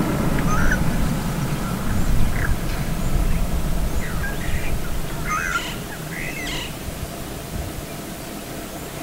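Wild birds giving short chirps every second or so over a low, even background noise that eases a little past halfway.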